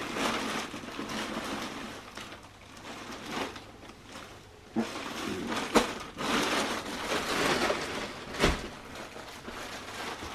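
Plastic mailing bag rustling and crinkling as a clothing parcel is torn open and unpacked, with a few sharper knocks, the loudest about six and eight and a half seconds in.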